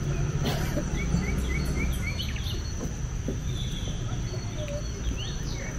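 Tropical forest ambience: a steady high insect drone with birds calling over it, a quick run of about six short rising chirps in the first two seconds, then a few scattered calls. A low rumble runs underneath.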